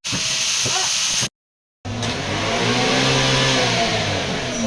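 A short burst of hiss, a brief cut to silence, then a car engine revving up and easing back down.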